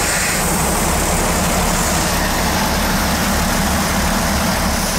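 Mercedes marine diesel engines running steadily, heard close up in the boat's engine room: a loud, even low drone with a fast pulsing beat and no change in speed.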